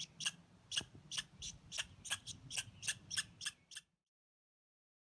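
A steady series of short, sharp, high clicks or chirps, about three a second, over a faint low hum; the sound cuts off abruptly about four seconds in, leaving dead silence.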